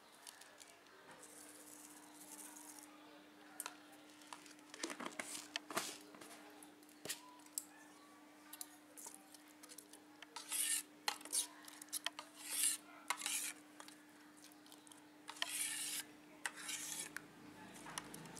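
Metal spoon stirring yogurt in a stainless steel bowl, scraping and clinking against the sides in irregular bursts, busiest about halfway through and again near the end. A steady low hum runs underneath.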